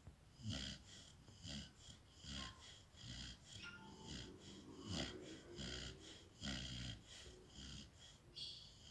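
Pit Monster puppy snoring in its sleep: short, wheezy, snorting breaths, roughly one every half second to second.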